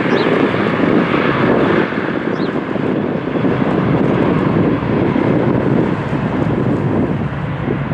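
Boeing 737 jet engines running as the airliner moves along the airfield, a loud, steady rush of engine noise.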